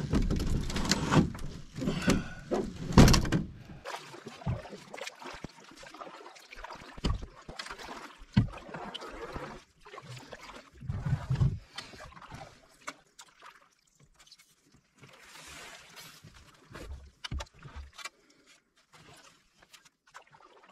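Canoe and paddle knocking and thudding irregularly, with some water noise. The knocks are loudest and come thickest in the first four seconds, then grow sparser and fainter.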